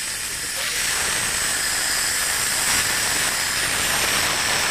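Compressed air hissing out through the open release valve of a lifeboat's air-cylinder line as the system is depressurised, its pressure dropping toward zero. The hiss grows louder about a second in and then holds steady.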